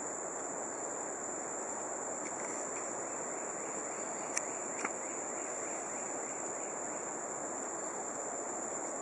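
A steady high-pitched chorus of rainforest insects over an even background hiss, with two sharp clicks about four and a half seconds in.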